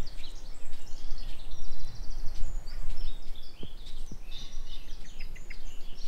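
Several songbirds chirping and singing in short phrases, with a quick trill about a second and a half in, over a steady low rush of wind noise.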